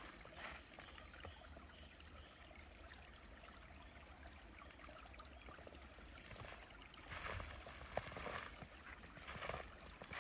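Small stream flowing, a faint steady rush of water, louder for moments about half a second in and several times near the end.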